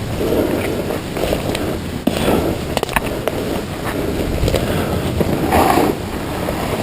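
Close rustling and scraping against the camera microphone, with a few sharp clicks about three seconds in.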